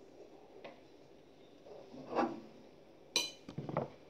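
Cookware handled in a kitchen: a soft knock about two seconds in, then a sharp, ringing metallic clink of a pan or utensil about three seconds in, followed by a brief knock or two.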